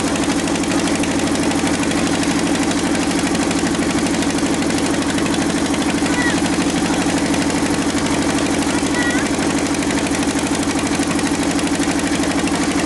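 An engine running steadily at constant speed with a fast, even pulse. A few faint short chirps sound over it about six and nine seconds in.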